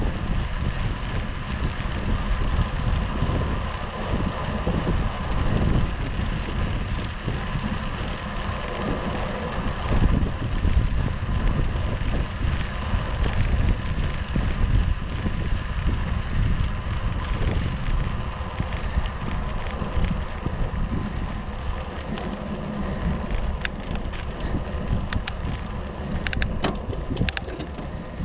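Wind buffeting the microphone of a bicycle-mounted camera while riding, over bicycle tyres rolling on rough tarmac; a few light clicks near the end.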